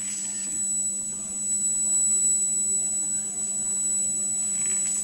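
Steady electrical hum with a constant high-pitched whine above it.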